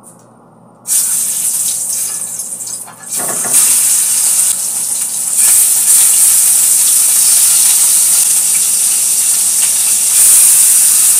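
Chicken pieces sizzling in hot oil in a frying pan as they are laid in. The sizzle starts about a second in and gets louder in steps as more pieces go in.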